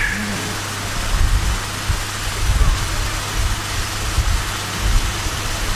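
Steady low electrical hum and hiss from an open microphone channel, with irregular low rumbles underneath and no speech.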